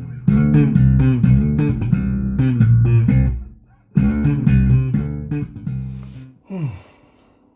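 Fender Player Precision Bass fitted with a Fender HiMass bridge, played as a line of plucked low notes. The line breaks off briefly about four seconds in, then starts again. It ends about six and a half seconds in with a slide down in pitch and rings away.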